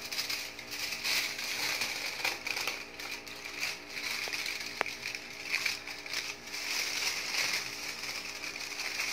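Aluminium foil crinkling and crackling as it is folded and rolled by hand around a raw embotido meat log. The rustle rises and falls throughout.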